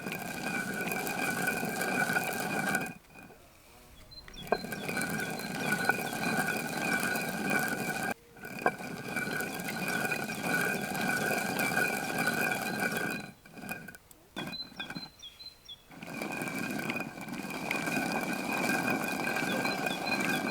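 A machine running steadily with a high whine, breaking off abruptly several times.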